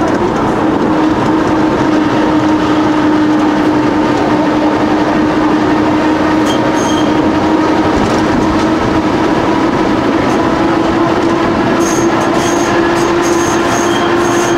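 Vintage electric tram running along the track, heard from an open trailer car coupled right behind it: a steady rumble of wheels on rails with a steady hum that rises slightly in pitch. Brief high squeaks come about halfway through and again several times near the end.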